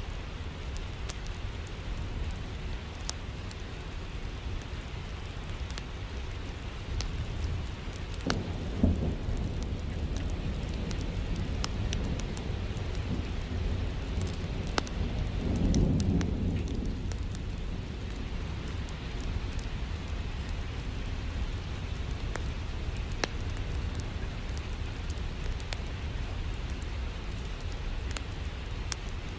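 Steady rain with thunder rumbling low twice, a short rumble about a third of the way in and a longer, louder one around the middle, over scattered sharp crackles.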